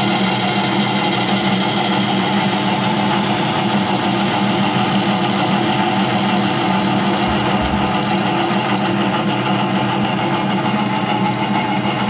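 Small lathe running steadily at about 750 rpm while its cutting tool takes a roughing cut on a white plastic roller blank, throwing off chips.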